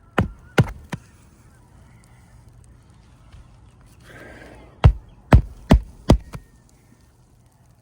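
Hammer strikes driving roofing nails into asphalt shingles: three quick blows at the start, a pause, then a run of about five blows roughly half a second apart.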